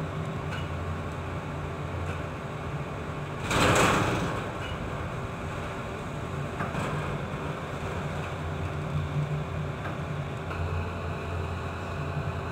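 Steady low hum of a ship's engines and machinery. About a third of the way in comes one brief rushing burst of noise, the loudest moment.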